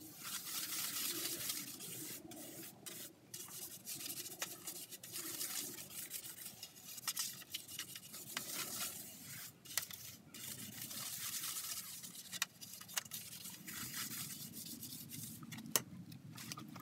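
A stiff brush scrubbing a plastic part over a tray of dirty, foamy cleaning liquid: steady wet rubbing with frequent small clicks and knocks.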